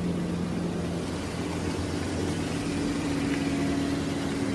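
Toyota Vios Limo ex-taxi's engine idling steadily, its hum shifting to a slightly higher tone about a second in.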